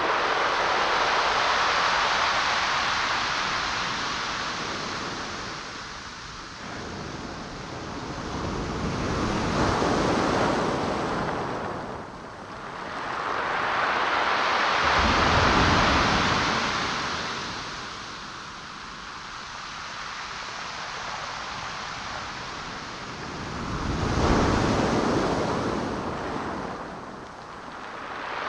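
Waves breaking and washing in, in slow surges that swell and fade about four times, with a deep rumble under the two biggest breaks.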